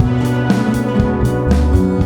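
Background music: a band track with drum kit, bass and guitar over a steady beat.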